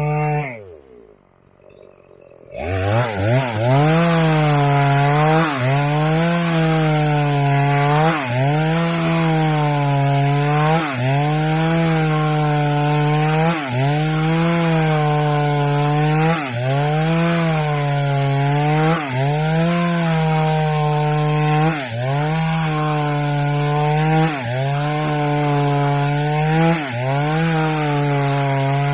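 Stihl MS 381 two-stroke chainsaw cutting waru wood. Its engine briefly winds down near the start, then revs back up. It then runs loud and high, its pitch sagging and recovering in a regular rhythm about every three seconds as the chain bites into the log under load.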